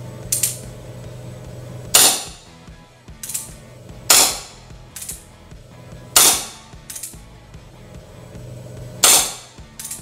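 CO2-powered Colt Single Action Army (Peacemaker) gel blaster revolver fired four times, roughly two seconds apart, each shot a sharp crack with a short hiss of gas. Between shots come lighter clicks as the single-action hammer is thumbed back.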